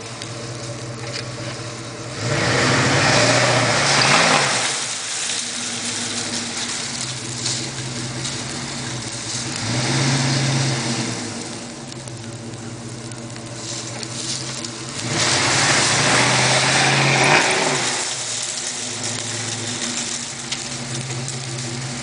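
Vehicle engine running steadily and revved up hard three times, each surge lasting a few seconds, as it strains to pull down a hickory tree.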